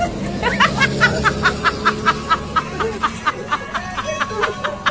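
Rapid, high snickering laughter, a giggle sound effect of about six even pulses a second, over background music.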